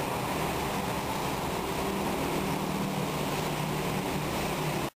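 Steady street traffic noise, with a low engine hum that comes in about halfway through.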